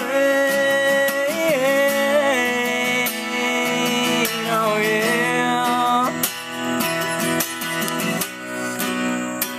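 Capoed Yamaha acoustic guitar strummed under a wordless sung vocal line for the first half. Then come a few closing strums, and a final chord is left ringing near the end.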